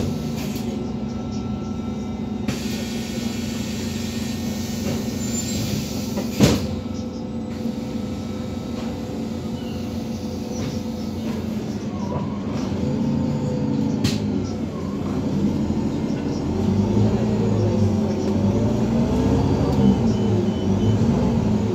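Cabin sound of an Iveco Urbanway 18 articulated natural-gas bus idling steadily at a stop, with a single sharp knock about six seconds in. From about two-thirds of the way through, the engine note rises and shifts as the bus pulls away.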